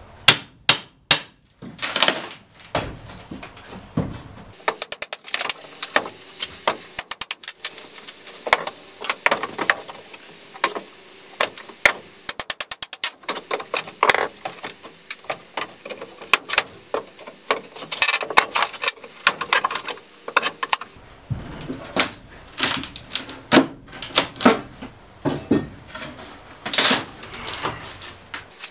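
Pry bar working on a camper's rotten plywood subfloor: repeated sharp knocks, scraping and cracking of wood as the boards are levered up, with a few quick rattling runs of cracks, and near the end a loose piece of plywood lifted away.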